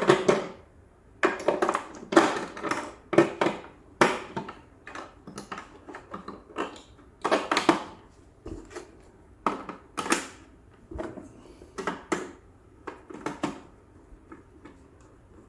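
Irregular clicks, knocks and plastic clatter of AA batteries being fitted into the battery compartment of a large hard-plastic Batmobile model as it is handled.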